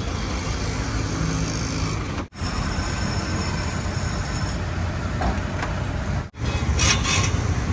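Steady street traffic noise, a dense low rumble of vehicle engines, dropping out for an instant twice. A short loud hiss comes near the end.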